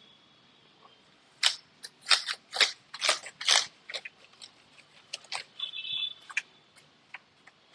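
Brush bristles scrubbing over laptop keyboard keys in about six quick, scratchy strokes during the first half, followed by lighter scattered ticks of the bristles and keys.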